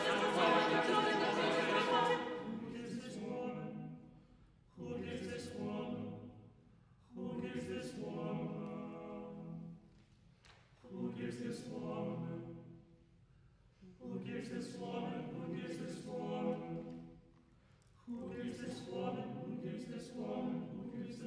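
Sixteen-voice chamber choir singing a cappella. A loud full chord opens, then the choir sings a series of short held chords, each a few seconds long and separated by brief pauses, most starting with a sharp hissing consonant.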